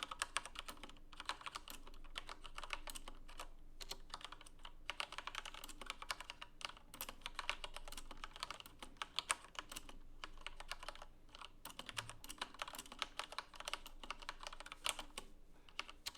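Typing on a Corsair K63 mechanical keyboard with Cherry MX Red linear switches: rapid, continuous key clacks in runs with brief pauses between them.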